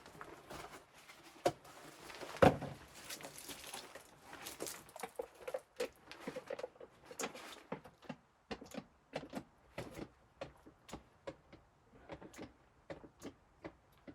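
Knocks and clicks of things being handled: a loud thump about two and a half seconds in, then a run of sharp taps and clicks, about two a second, in the second half.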